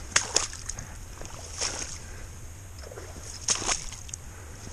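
Hooked steelhead splashing and sloshing in shallow water at the bank: a few short splashes, two near the start, one in the middle and two close together near the end, over a low steady rumble.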